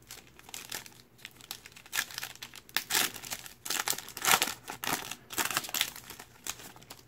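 Foil trading-card pack wrapper torn open by hand and crinkled as the cards are pulled out: a run of irregular crackles and rustles.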